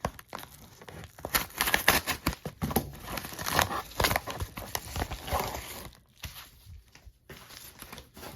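A package being torn open and its wrapping crinkled and rustled by hand, in a dense run of irregular crackles that quiets near the end.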